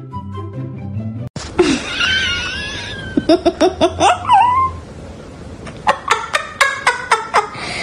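Background music that cuts off about a second in. Then a high, wavering whine, followed by two runs of short, rapid bursts of laughter, about five or six pulses a second.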